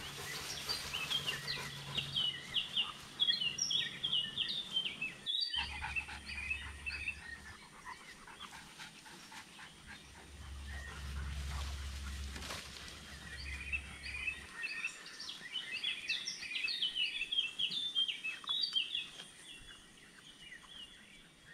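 Small birds chirping rapidly in two spells, through the first five seconds and again across the second half, over a low steady rumble.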